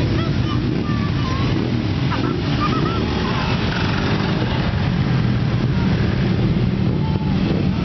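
Several motorcycle engines running as a line of bikes rides slowly past one after another, a steady low engine drone with faint voices of onlookers.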